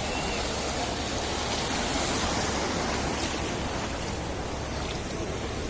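Sea surf washing onto a sandy beach: a steady, unbroken rush of wave noise, its hiss easing slightly in the second half.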